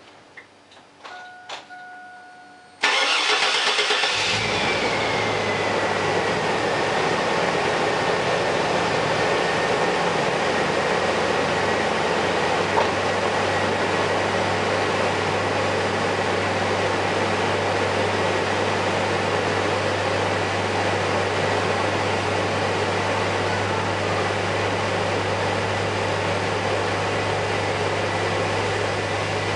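2001 Chevy Blazer's 4.3-litre V6 started for the first time after an intake manifold gasket repair: a few faint clicks and a short tone, then about three seconds in it cranks, catches at once and settles into a steady idle. A thin high whine drops in pitch just after the start and then holds steady.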